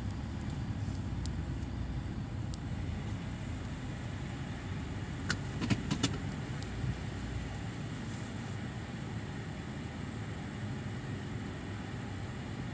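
Car engine running steadily as the car eases forward, heard from inside the cabin as a low rumble. A few sharp clicks come about halfway through.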